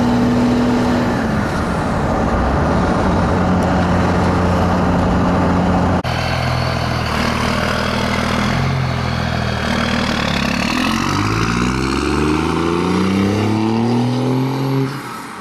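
2001 Dodge Ram 2500's 24-valve Cummins turbo diesel running through a 3-inch straight pipe. It is first heard from the truck bed while cruising: a steady exhaust drone that steps down in pitch about a second in. After a sudden cut the truck accelerates away, its note climbing and dropping several times as it shifts up through the gears, and it fades just before the end.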